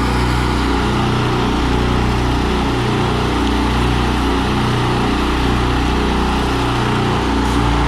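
Two pressure washers running together, each powered by a Honda GX390 single-cylinder engine, with a steady engine note that swells and dips about every two seconds.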